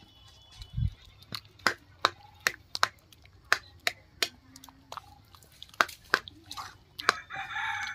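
Steel ladle clinking irregularly against a metal kadai while boiled tomatoes are stirred and mashed, with soft wet squelching. Near the end a rooster starts to crow.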